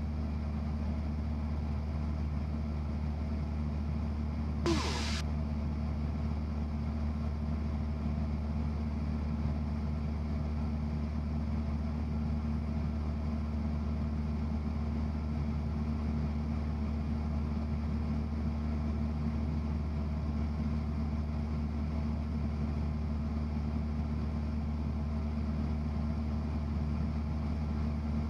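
Cessna 172's piston engine and propeller droning steadily at cruise power, heard inside the cockpit. A single brief click comes about five seconds in.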